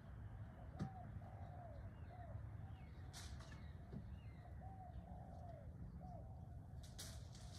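Birds calling in the garden: a series of short, rounded notes that rise and fall, roughly one a second, with two brief sharp high chirps, one about three seconds in and one near the end. A low, steady rumble runs underneath.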